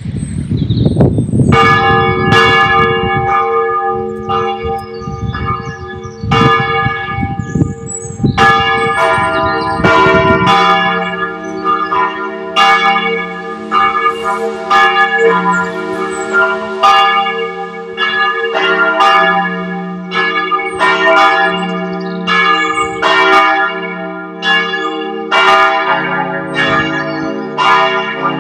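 Several church bells ringing together in a peal, strikes overlapping about once or twice a second over a sustained hum. A deeper bell joins about ten seconds in and a deeper one still near the end. A low rumble lies underneath for the first ten seconds.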